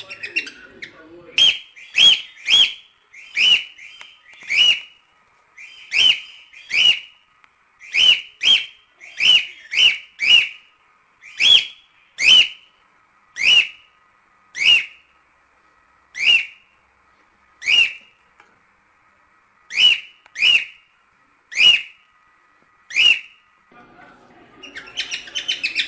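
Cockatiel giving a long string of short, sharp whistled calls, one or two a second and sometimes in quick pairs. Near the end it breaks into a busier, scratchier chatter of notes.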